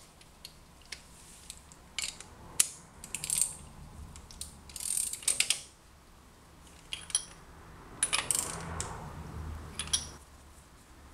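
Ratchet wrench clicking in several short runs, with sharp metallic clinks and taps, as new spark plugs are screwed into the engine's cylinder head.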